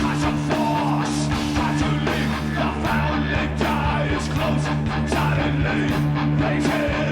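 Rock band playing: distorted electric guitar and bass holding low notes under regular drum hits, with a singing voice over them.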